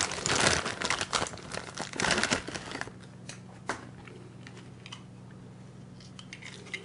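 Plastic bag crinkling loudly as an NZXT Sentry 2 fan-controller panel is pulled out of it. The crinkling dies down after about three seconds, leaving a few light clicks and taps of handling.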